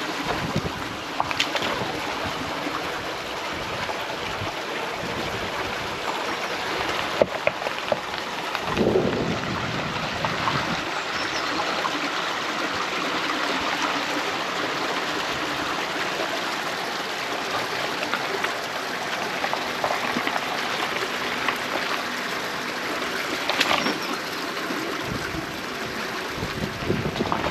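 Off-road vehicle crawling along a rough track: a steady rushing noise with scattered clicks and knocks, and a louder thump about nine seconds in.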